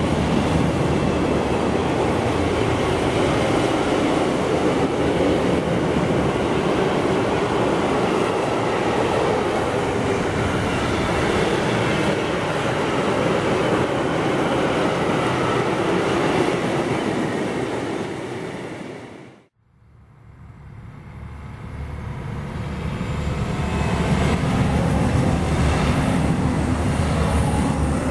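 Freight train of double-deck car-transporter wagons rolling past close by, a steady loud rumble of wheels on the rails. About two-thirds of the way through the sound cuts out abruptly, then a steady noise swells back up.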